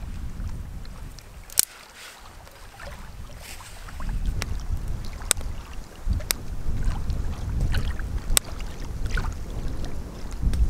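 Wood fire crackling in a small folding box stove under a cooking pot, with sharp pops every second or so, over wind buffeting the microphone.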